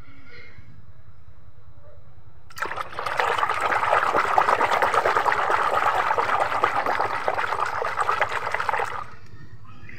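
Hands swishing and splashing soapy water in a plastic basin while scrubbing a toy. The churning starts about two and a half seconds in and stops abruptly near the end.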